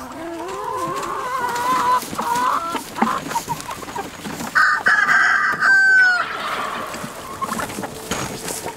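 Chickens clucking, with one loud drawn-out squawking call about five seconds in that falls away in pitch at its end.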